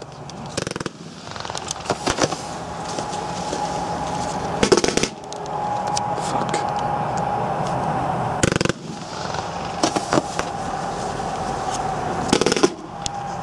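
Blackboxx Fireworks 'Feuerhengst' firework battery firing: shots go up one after another with a continuous hiss and a steady whine, broken by several loud bangs a second or more apart as the effects burst.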